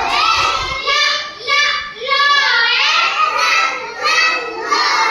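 A young child's high voice chanting alphabet phonics sounds in a sing-song way, the pitch rising and falling from phrase to phrase.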